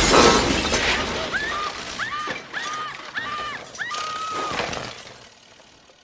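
A sudden loud crash with a shattering, breaking sound, followed by a run of about six short high calls that each swoop up and then level off, the last one held longer before everything fades out near the end.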